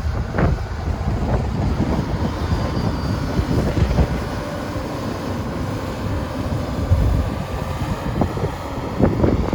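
Komatsu PC200LC-6LE hydraulic excavator's diesel engine running with a steady low rumble, with some wind noise on the microphone.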